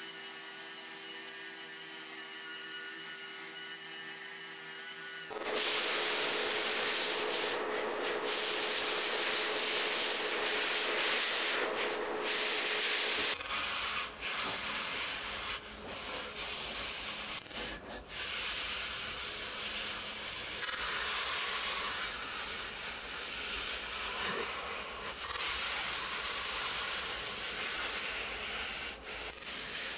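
Sanding the cast-iron body of a Monarch 10EE lathe. An electric random orbital sander with a vacuum hose attached runs with a steady whine, then turns into a much louder scratchy sanding noise about five seconds in. In the later part a round hand sanding pad is rubbed back and forth over the casting in uneven strokes.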